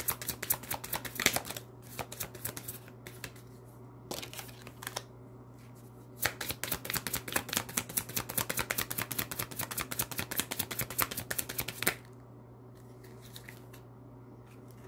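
Oracle card deck shuffled by hand: rapid, crisp flicking of cards. One run comes at the start, a few scattered flicks follow, and a longer run starts about six seconds in and stops abruptly about twelve seconds in. A low steady hum lies underneath.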